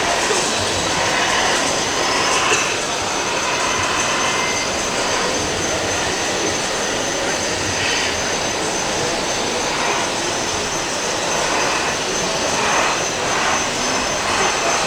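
Steady din of a busy model-show exhibition hall: a continuous mixed wash of background noise with a faint high-pitched whine held throughout.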